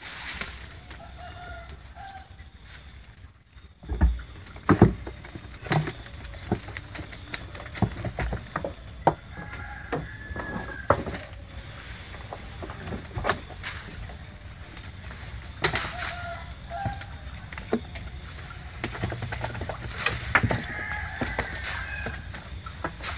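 Knocks and thuds of a net fish trap (lú) being handled against a wooden boat's deck, with water splashing as the trap goes back over the side near the end. Short bird calls sound several times in the background over a steady high hiss.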